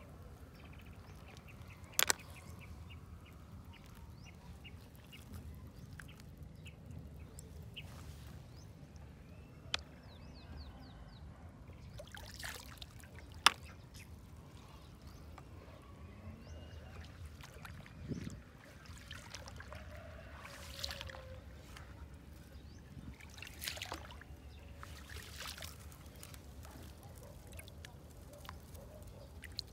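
Shallow water sloshing and trickling as freshwater snails are picked out of it by hand, with a few sharp clicks of shells knocking together, the loudest about two seconds in and near the middle.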